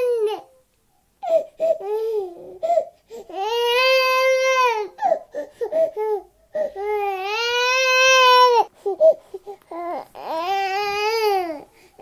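A 10-month-old baby crying: three long high-pitched wails, with short broken sobs and catching breaths between them.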